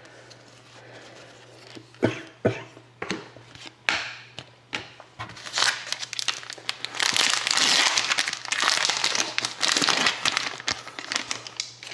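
Cards clicking and tapping as they are handled, then several seconds of dense crinkling as a hockey card pack's wrapper is torn open and crumpled.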